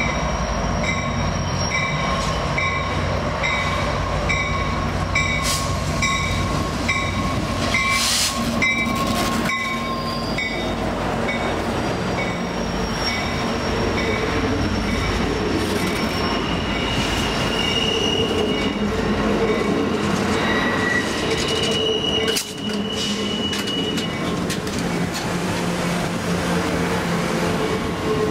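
Amtrak passenger train pulling slowly past at close range: the diesel locomotive running as it approaches, then bi-level Superliner cars and heavyweight business cars rolling by, with wheels squealing on the curve in the second half. A ringing tone pulses about twice a second over the first ten seconds.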